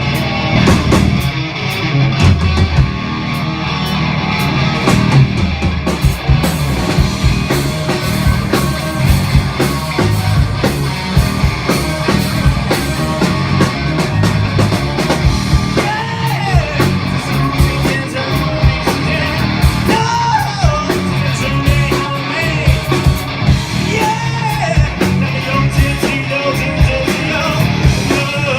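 Live rock band playing loud distorted electric guitars and a pounding drum kit, with a singer yelling over it.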